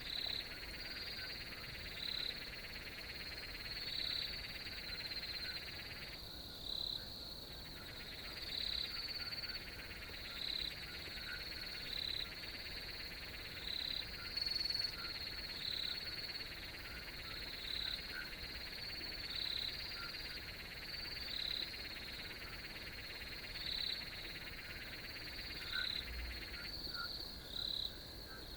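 Night chorus of crickets and other calling animals: a steady high trill, with a louder call repeating about every one and a half to two seconds. Under them runs a lower buzzing layer that drops out briefly about six seconds in and again near the end.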